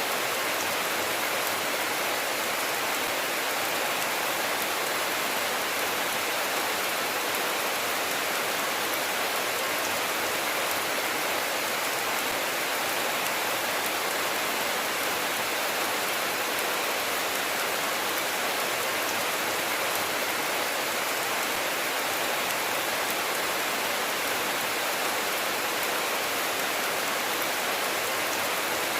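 Steady rainfall, an even hiss of many drops that keeps the same level throughout, with no thunder.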